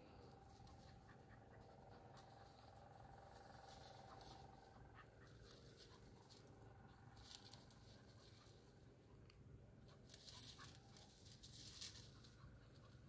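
Near silence, with faint short rustles and scratches coming and going every few seconds.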